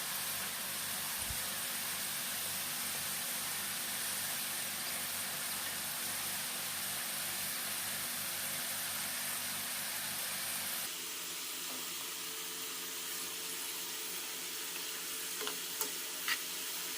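Parboiled, frozen potato strips deep-frying in hot oil, with steady sizzling. The sizzle drops slightly about eleven seconds in, and a few light clicks come near the end.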